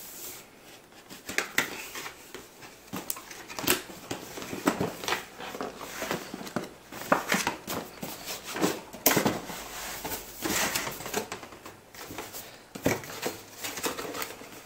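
Cardboard packaging being handled: an irregular run of scrapes, rubs and light taps as the outer box is opened and the plain brown inner box is slid out and stood on the table.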